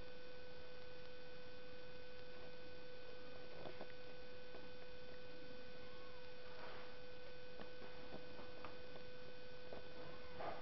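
Faint, scattered small clicks and squeaks from a litter of kittens suckling at their mother cat, over a steady electrical hum and hiss.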